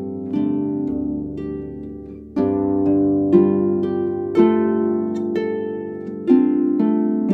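Thormahlen Swan harp played près de la table, plucked close to the soundboard for a dry, koto-like tone. Single plucked melody notes ring out over low sustained bass notes, falling about once a second from about two and a half seconds in.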